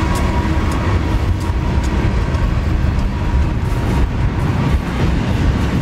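Long diesel freight train passing at speed close by: a steady heavy rumble of steel wheels on rail as double-stack container cars roll past, with faint scattered clicks.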